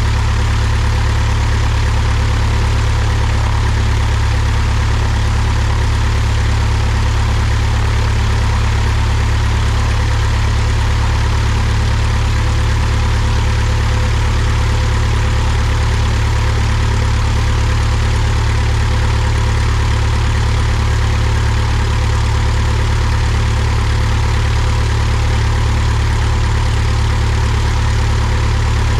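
Cessna 172's piston engine and propeller running steadily at taxi power, heard close up from outside under the wing.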